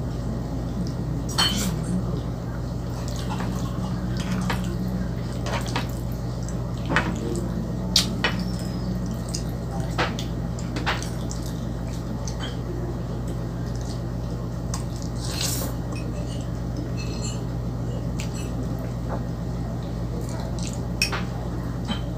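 Person eating spaghetti carbonara close to the microphone: chewing and wet mouth sounds, with scattered sharp clinks of a metal fork on a ceramic bowl, over a steady low hum.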